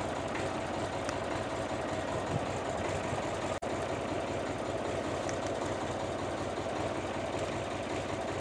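Massey Ferguson 35 diesel tractor engine running steadily, with a momentary dropout about three and a half seconds in.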